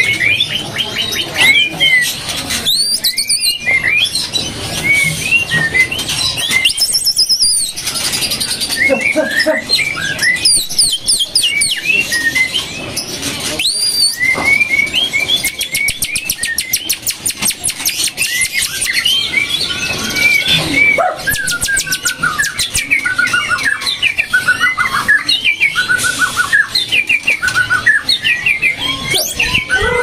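Many caged songbirds chirping and whistling together, a dense, varied stream of short whistles and trills, with stretches of very fast rattling clicks around the middle.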